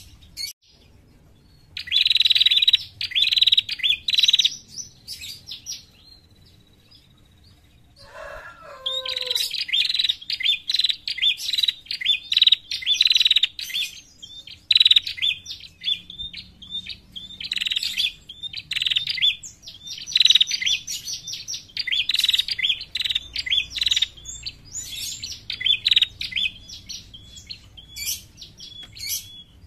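Female prenjak (prinia) calling in bursts of rapid, scratchy chattering notes, the kind of call used to lure other prenjak. After a pause of a few seconds comes a brief run of lower notes, then the chattering goes on almost without a break.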